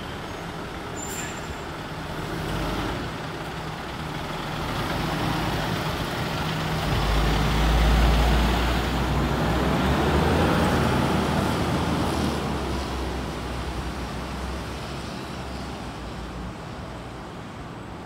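Scania fire truck's diesel engine pulling away and driving past, growing louder to a peak about halfway through, then fading as the truck moves off.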